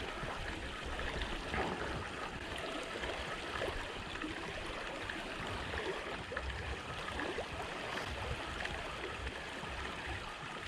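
Small waves lapping and washing over a rocky shoreline, a steady gurgling wash of water over stones.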